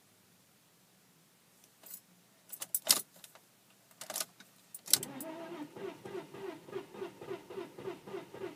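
Keys jangle and click in the ignition, then about five seconds in the starter of a 1998 Audi A4's 2.8 V6 begins cranking the engine with a steady rhythmic pulsing, about four beats a second, without the engine catching: a no-start.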